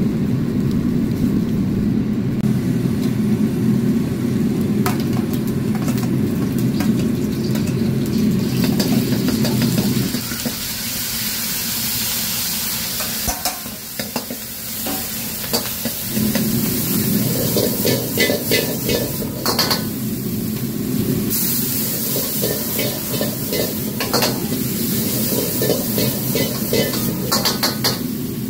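A metal ladle stirring and scraping in a wok as minced beef and scallions sizzle and fry, with many short clinks of ladle on wok. Beneath runs the steady low rush of the gas wok burner, which drops back for a few seconds about ten seconds in.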